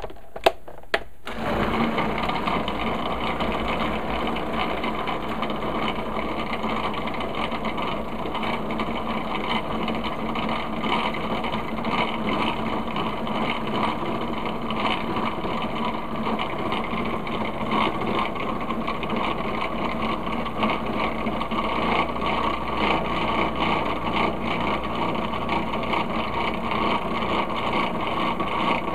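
Electric food processor running steadily, its blades churning frozen banana chunks, dates and carob powder that are still at the crumbly, cookie-dough stage before turning creamy. A few clicks at the start, and the motor starts about a second in.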